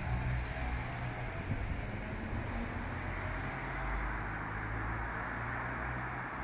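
Cars driving past on a roundabout: engine and tyre noise of passing road traffic, over a steady low engine hum.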